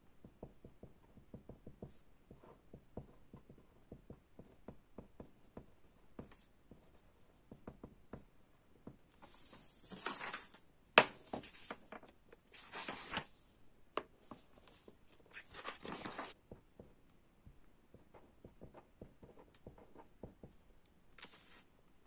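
Pen writing on paper: light scratchy strokes and small taps. In the middle come several loud rustles of the pages of a paper study booklet being handled and turned, with one sharp click among them. The pen strokes start again near the end.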